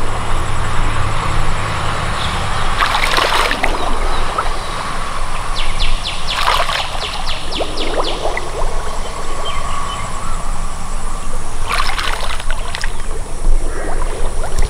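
Legs wading through shallow water, sloshing and splashing, with stronger splashes about three seconds in, around six to seven seconds, and near twelve seconds. A steady low rumble runs underneath.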